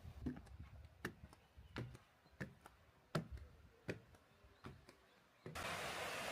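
Footsteps walking at an even pace, a sharp step about every three-quarters of a second. Near the end they cut off abruptly into a steady hiss of outdoor noise.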